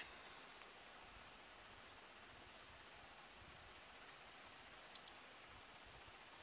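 Near silence with a few faint, scattered clicks of a computer keyboard being typed on.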